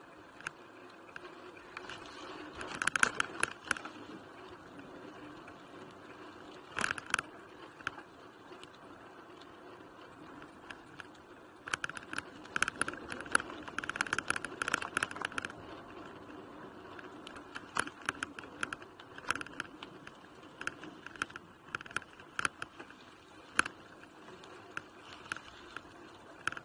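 Mountain bike rolling over a bumpy dirt and gravel trail, its parts rattling and clicking in short bursts as it crosses rough ground, over a steady hiss of tyres on dirt. The longest run of clatter comes about halfway through, with scattered jolts after it.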